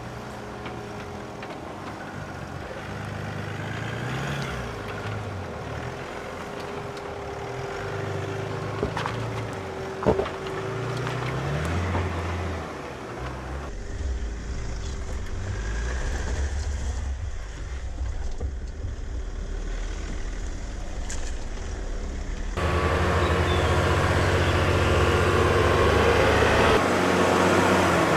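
Mercedes-Benz G-Class engine running at low revs as the SUV crawls over rocks, its pitch rising and falling with the throttle. A single sharp knock about a third of the way in. The sound changes abruptly twice, at about the halfway mark and again further on, where it gets louder.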